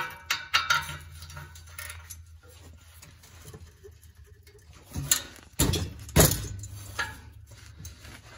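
Socket wrench, extension and ratchet clinking against the exhaust flange nuts and pipe as they are fitted: irregular sharp metallic clinks and knocks, a few in the first two seconds and the loudest about five to six seconds in.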